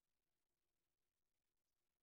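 Near silence: only a faint, even background hiss.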